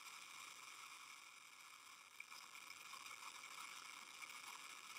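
Near silence: a faint, steady hiss with no rocket roar heard.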